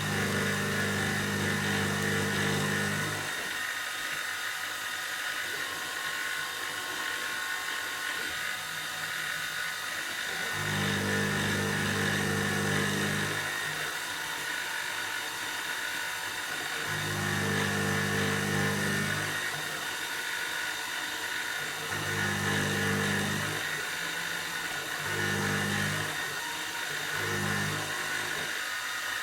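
Small Optimum BF16 milling machine running under CNC control, roughing aluminium: a steady high whine and hiss of the spindle and cutter. A lower hum comes in and cuts off about six times, the later stretches shorter.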